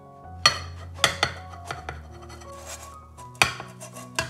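A handful of sharp clinks and knocks from a non-stick frying pan against the ceramic hob and a ceramic plate as the omelette is slid out, with some soft scraping between them. Background music plays throughout.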